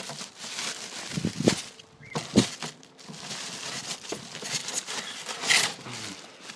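Packaging being handled as a computer case is worked out of its box: plastic and cardboard rustling and crinkling, with a few sharper knocks, the loudest about two and a half seconds in.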